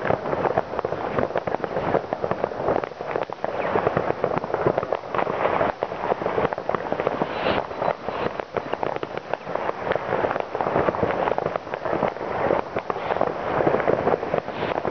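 Many distant fireworks and firecrackers going off across a town at once: a dense, unbroken crackle of overlapping bangs and pops.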